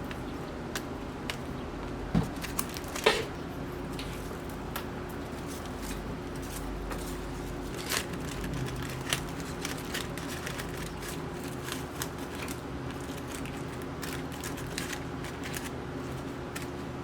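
Hands handling rose stems and tape while binding a bouquet: scattered crinkles and small clicks, with a few sharper ticks, over a steady low hum.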